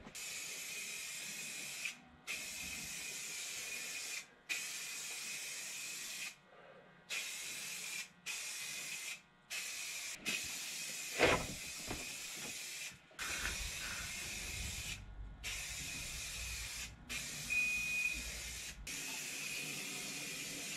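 Aerosol spray can of primer hissing in a string of spray passes, each one to three seconds long with brief breaks between them, a faint steady whistle riding on the hiss. A single sharp knock about eleven seconds in.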